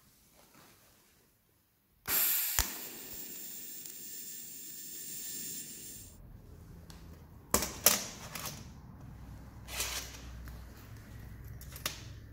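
TIG welding arc on steel bicycle chain links: it strikes suddenly about two seconds in, runs as a steady hiss with a high buzz for about four seconds, then cuts off. After that come a few sharp metal clicks as chain links are handled.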